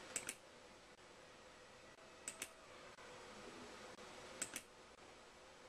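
Near silence with faint room hiss, broken by three quick pairs of short clicks about two seconds apart.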